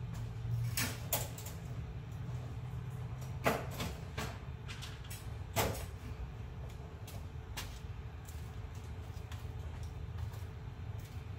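Irregular clicks and knocks of hands working with cables and fittings, the two loudest about three and a half and five and a half seconds in, over a steady low hum.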